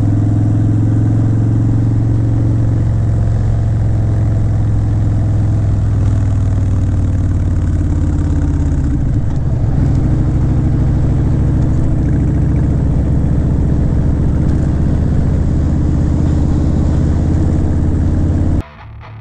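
Harley-Davidson Breakout's V-twin engine running steadily under way, heard from the rider's seat, with a brief dip about halfway through. Near the end it cuts off suddenly into electric guitar music.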